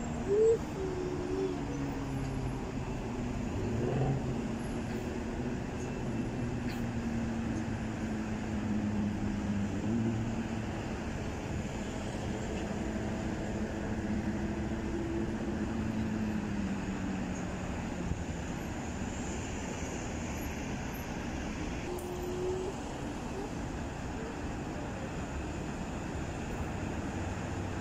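Steady urban traffic drone, with a passing engine whose pitch falls slowly over about fifteen seconds. A short, loud pitched sound comes right at the start.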